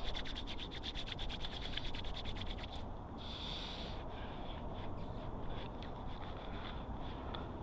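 Bicycle freewheel ticking in a fast, even run of clicks as the bike is wheeled along, stopping about three seconds in. Then come a few scattered clicks and a short hiss.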